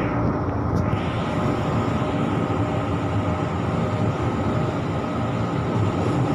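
JR 205 series electric commuter train running, heard from inside the carriage: a steady rumble of wheels on rail with a faint steady hum.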